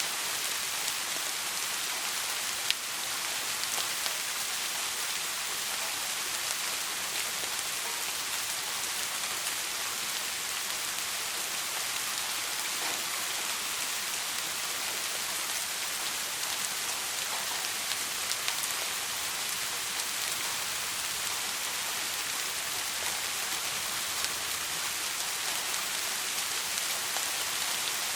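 Steady rain falling on a surface, an even hiss with scattered drop ticks and one sharper tap about three seconds in.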